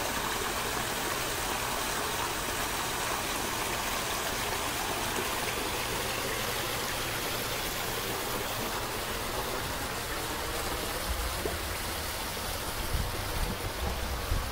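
Steady rush of running water in a garden fish pond, with a few low bumps near the end.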